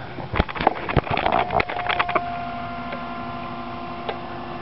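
A small electric motor whines steadily at an unchanging pitch, starting a little over a second in and filling out with more tones about two seconds in. Several sharp knocks come in the first two seconds.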